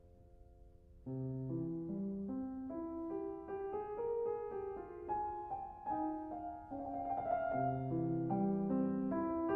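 Solo piano music: a held chord fades out, then about a second in the piano starts playing a flowing line of single notes over low bass notes, louder from there on.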